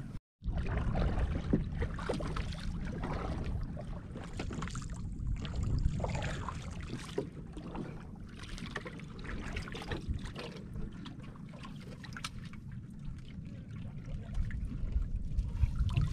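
Seawater lapping and splashing around a small outrigger boat as crab lift nets are worked, over a steady low wind rumble on the microphone. The sound drops out for a moment just after the start.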